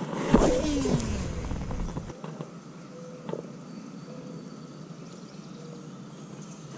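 Baitcasting reel's spool whirring through a cast, its pitch falling as it slows over the first two seconds, followed by a quieter steady background while the line is reeled back in.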